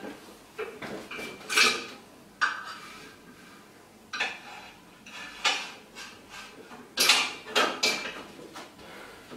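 Several irregular metallic clanks and rattles from the steel uprights and handles of a freestanding dip station as it is gripped and handled. The stand is not stable and shakes.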